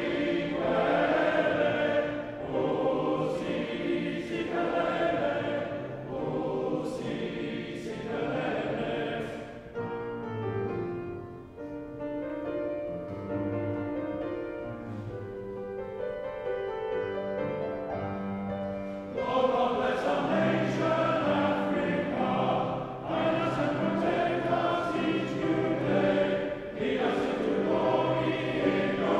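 Male voice choir singing in harmony with piano accompaniment, in the echoing space of a large stone church. About ten seconds in, the music drops to a quieter, thinner passage of held notes, and the full choir comes back loud about nine seconds later.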